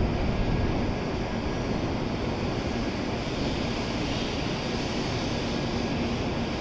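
Steady low rumble and rush from an N700 series Shinkansen train standing at the platform with its onboard equipment running, with a faint steady high tone over it.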